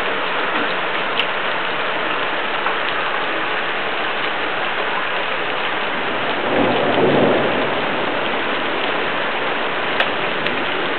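Steady rain falling during a thunderstorm, with a low rumble of thunder swelling for about a second around six and a half seconds in.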